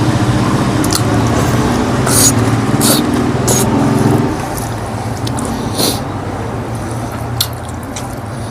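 Wet, squishy eating sounds: short smacking clicks of chewing and biting pork and eromba, a few at a time. A low, steady motor hum sits underneath and stops about halfway through.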